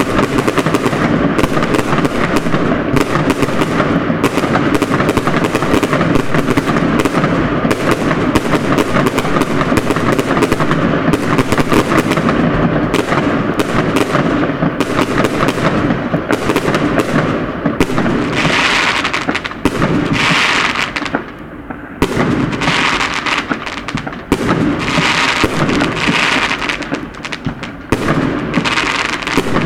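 Many fireworks going off at once: a near-continuous rattle of bangs and crackles from aerial shells. From about two-thirds of the way through come bursts of crackling hiss, with a brief lull between them.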